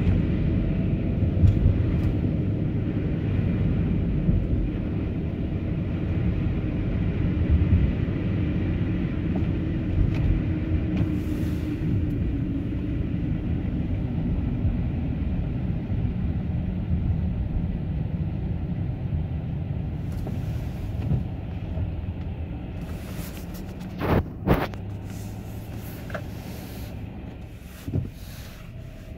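Car driving on a snowy road: steady low road and engine rumble, with a couple of short sharp knocks near the end.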